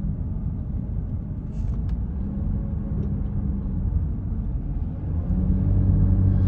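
Car running, heard from inside the cabin: a steady low rumble of engine and road noise with an engine hum that grows a little louder about five seconds in.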